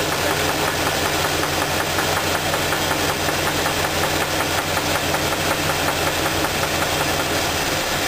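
V8 engine idling with a steady, rhythmic knock from the bottom end. The knock comes from a bad (spun) rod bearing on the number 2 cylinder.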